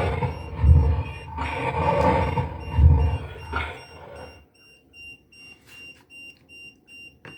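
A loud, muffled rumbling noise with low thumps roughly once a second for the first four seconds or so, then a faint, high-pitched electronic beep repeating about twice a second.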